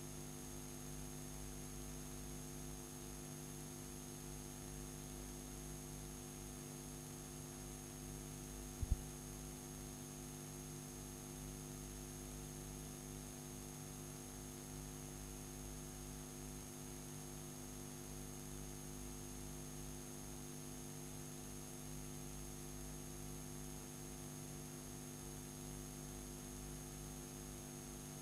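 Steady electrical mains hum with faint hiss from the playback of a blank stretch of videotape, with a single click about nine seconds in.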